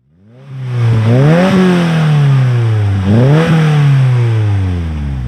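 2022 Subaru WRX's turbocharged flat-four engine revved twice, each rev climbing quickly and then dying away slowly, with a strong hiss over the engine note.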